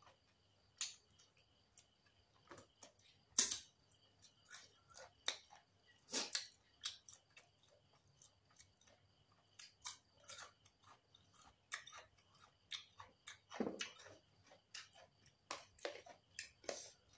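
Close-up chewing of fried chicken and raw cucumber: irregular wet mouth clicks and crunches, a few of them louder.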